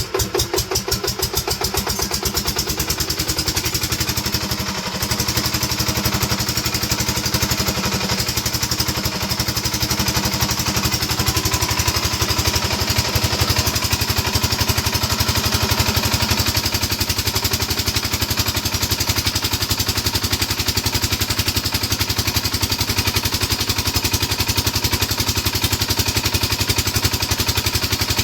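Single-cylinder 5 hp diesel engine starting and running at a steady, even firing beat. It speeds up over the first few seconds and then holds steady. It runs after a repair, and the mechanic judges the earlier abnormal noise to be gone.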